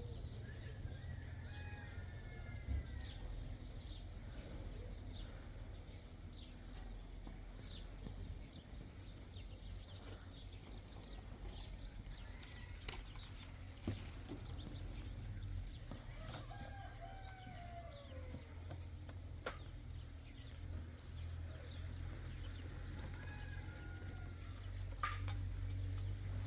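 Rooster crowing a few times, each crow an arching pitched call, over a steady low rumble.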